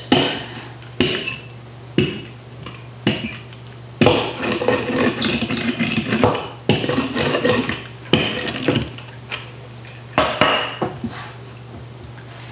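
Wooden rolling pin rolled back and forth over glued fabric on a sewing-machine case, with a rough rolling sound and a wooden knock about once a second as the pin changes direction or strikes the case.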